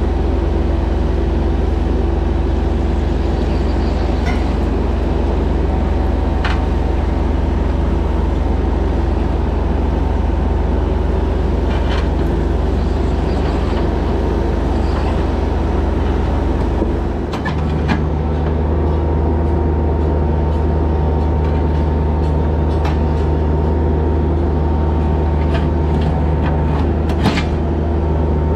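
Bobcat E26 mini excavator's engine running steadily under work, with a few sharp knocks and clanks. About 17 seconds in, the engine note drops and settles at a new steady pitch.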